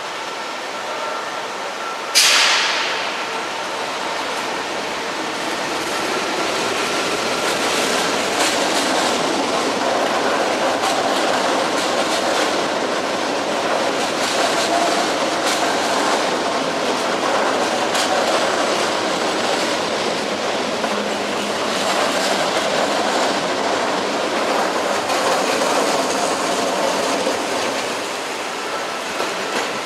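NS Sprinter (SGMm) electric multiple unit rumbling past along the platform, its wheels clicking over rail joints. A sudden loud hiss about two seconds in fades away over about a second.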